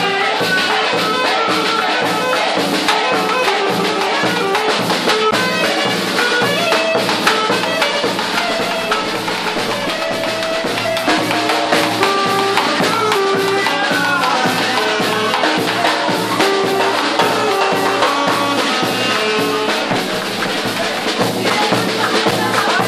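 Colombian papayera brass band playing a dance tune: brass and trumpet lines over a steady drum beat.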